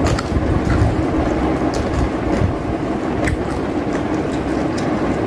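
Raw cucumber being bitten and chewed, with short irregular crunches, over a steady rumbling background noise.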